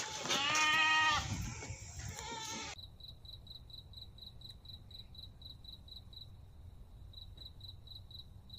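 A goat bleating: one quavering call about a second long, followed by softer animal sounds. About three seconds in, these cut off abruptly, leaving a faint high-pitched pulsing tone at about four beats a second over a low hum.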